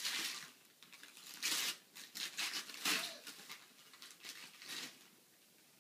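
Wrapping paper tearing and crinkling in a series of short rips and rustles as a present is unwrapped by hand.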